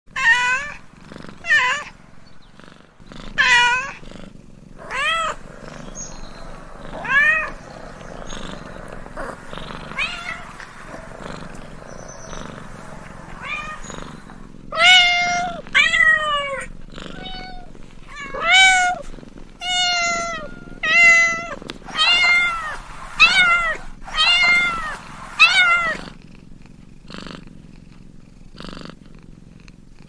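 Domestic cat meowing over and over, each meow rising then falling in pitch, coming closer together and louder in the second half, then stopping near the end. A low steady purr runs underneath.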